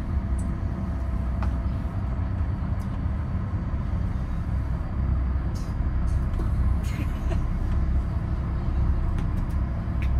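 Steady low machinery drone inside a ferry's passenger deck, with a few faint knocks and rustles from close by.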